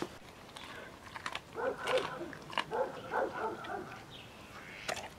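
A Weimaraner making short pitched vocal sounds in quick groups about two and three seconds in, mixed with a few sharp clicks, as it gets to its bowl of raw food.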